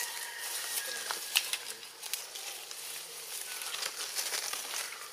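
Rustling and crackling of twigs and leaves as long-tailed macaques move and handle branches in a tree, with many sharp clicks, the loudest about a second and a half in, over a steady high forest hiss.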